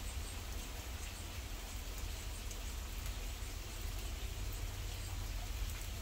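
Steady rain falling, with scattered drops ticking close by and a constant low rumble underneath.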